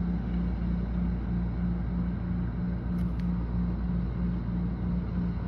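Thunderstorm wind and heavy rain heard from behind a window, a steady rush with a low rumble. A low hum pulses evenly about three times a second, and two brief clicks come about three seconds in.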